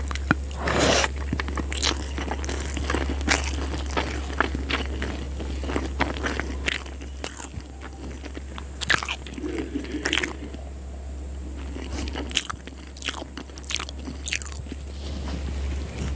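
Close-miked chewing of a mouthful of spicy schezwan noodles, with many short wet smacks and clicks of the mouth, over a steady low hum.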